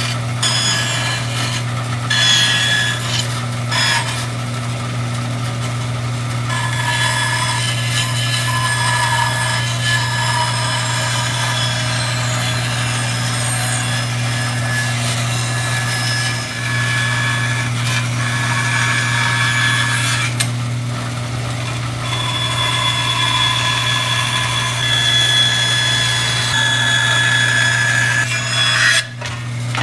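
Power saw cutting a wooden canoe deck blank along a pencilled line: a steady motor hum under shifting cutting noise, dipping briefly about halfway and stopping shortly before the end.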